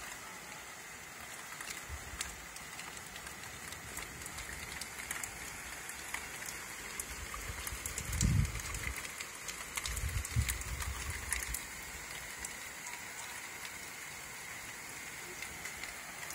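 Heavy rain falling steadily, with drops ticking on window glass. Two short low rumbles come about eight and ten seconds in.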